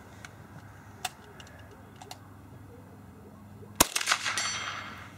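A single sharp crack from a Chipmunk single-shot .22 Long Rifle rifle a little under four seconds in, with a decaying tail. About half a second later comes the faint high ring of the distant steel plate being hit. A few faint clicks come before the shot.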